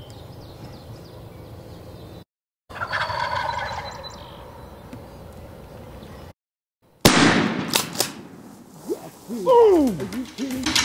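Wild turkey gobblers gobbling, in short separate clips. A single loud, sharp bang comes about seven seconds in.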